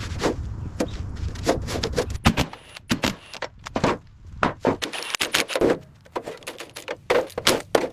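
A quick, irregular run of sharp knocks and clicks with short scrapes in between, like hand work on hard parts, some strikes louder than others.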